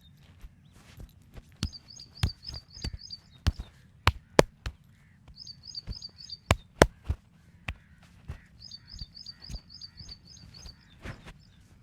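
Sharp, irregular clicks and taps from a wooden-stick massage, the loudest a few seconds in and again about halfway through. Between them a small bird calls in repeated quick strings of high chirps.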